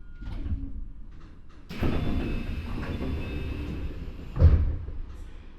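Keio 9000-series train's doors opening at a station stop: a sudden air hiss that runs for a couple of seconds, then a loud thump as the doors reach the end of their travel.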